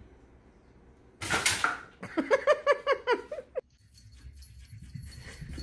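A pet animal gives a quick run of short, pitched calls, about six a second, after a short burst of hiss-like noise.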